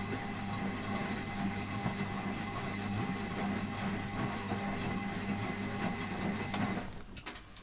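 Zanussi FL1012 washing machine's motor turning the drum with a steady grinding hum, stopping about seven seconds in, followed by a few faint clicks. The grinding has been getting worse; the owner thinks it is not the drum but worn motor brushes or a motor fault.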